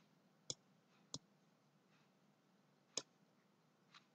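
Computer mouse button clicking four times, sparse and sharp, with long gaps between: twice in the first second or so, once about three seconds in and a fainter one near the end.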